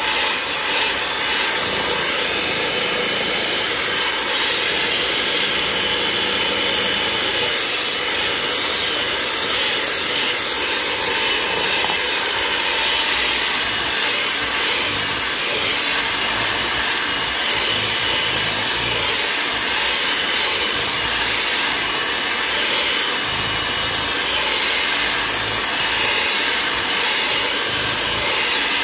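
Electric mixer running steadily at one speed, beating pound-cake batter.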